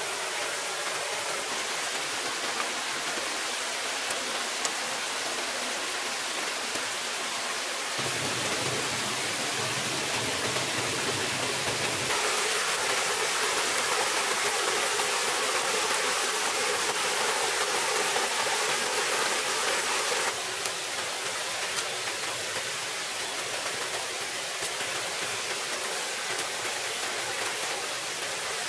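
Small forest stream running over a low rocky cascade: a steady rush and splash of water that shifts abruptly in strength a few times.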